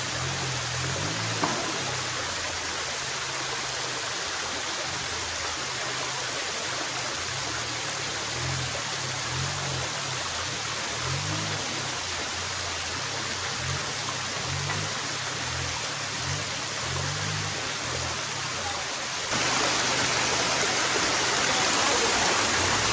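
Steady rush of a rocky mountain stream, with background music of low, stepping bass notes underneath. About nineteen seconds in the water noise suddenly becomes louder and brighter.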